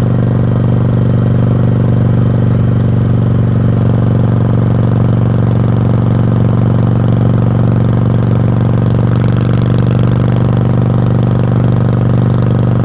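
1986 Yamaha Virago's V-twin exhaust running steadily, its deep note holding one unchanging pitch throughout.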